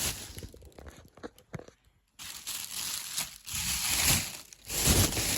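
Taped plastic bag packaging being ripped open and crinkled, with a short lull about a second in before the rustling and tearing resume.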